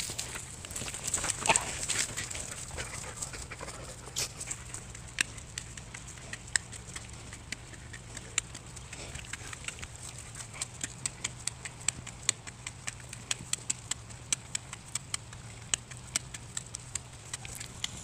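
A dog chewing and tugging at a thick, frayed rope. It makes a run of irregular small clicks and crunches as its teeth work the fibres, several a second.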